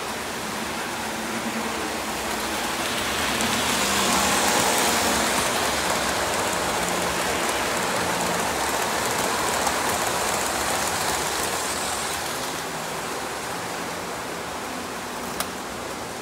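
O gauge Lionel model train rolling past on three-rail track: a steady rush of wheels on the rails that builds over the first few seconds, holds, and fades away after about twelve seconds. A single sharp click comes near the end.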